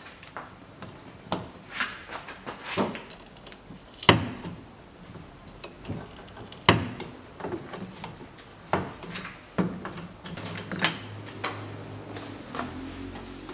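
A socket and long breaker bar working the rear hub nut off a VAZ-2110 stub axle: irregular metal clinks and knocks, the sharpest about four and seven seconds in.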